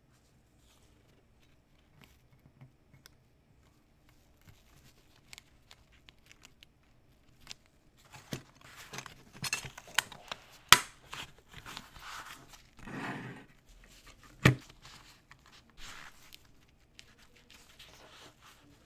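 Rustling, scraping and small clicks of gloved hands handling and fitting diecast model car parts and clear plastic window glazing, faint at first and busier in the second half, with two sharp clicks about two thirds of the way through.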